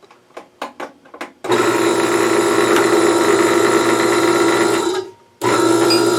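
Small Porter Cable air compressor's motor and pump starting up and running steadily, after several light clicks. It cuts out about five seconds in and starts running again half a second later.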